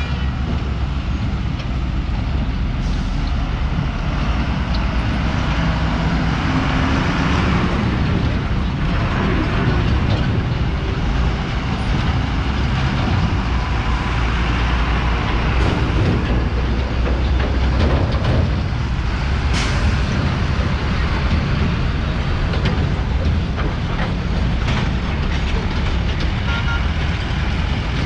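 Steady vehicle and road noise: a deep rumble under a constant hiss, with a few brief knocks now and then.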